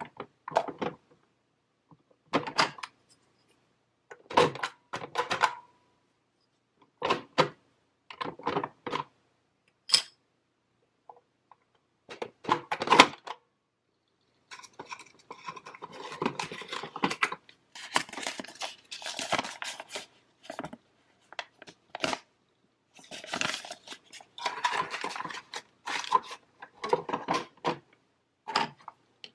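Plastic pieces of a toy cash register and pretend food play set being handled: short clusters of clicks and clatter with silent gaps, turning into a denser stretch of rattling and rustling about halfway through.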